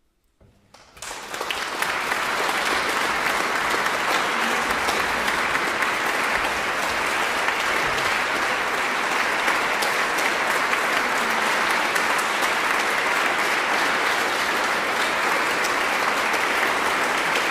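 Audience applauding: clapping breaks out about half a second in, swells within a second or two and carries on as steady, dense applause.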